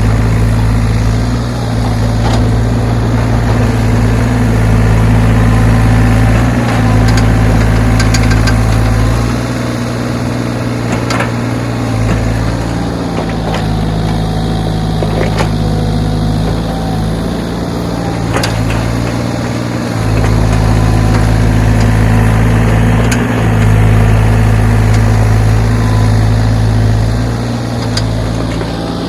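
Backhoe's diesel engine running steadily, its pitch and load rising and falling as it works, with a few sharp knocks in the middle.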